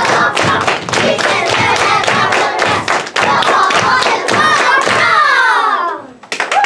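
A group of children clapping their hands in a quick rhythm while chanting together. About five seconds in, their voices slide down in pitch together and cut off suddenly.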